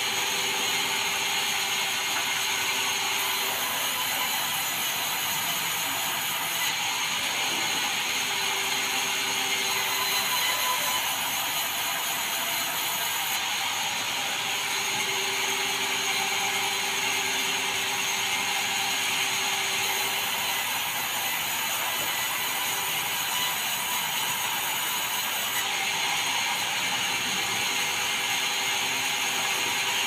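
Band sawmill running and sawing meranti timber: a steady, dense mechanical noise with a faint hum that comes and goes several times.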